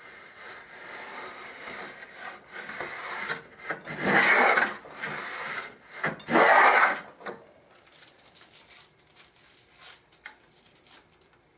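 Handmade wooden dado plane cutting a groove across the grain of a clamped board: the blade scrapes through the wood in rasping strokes, the two loudest about four and six seconds in. After that only light taps and knocks.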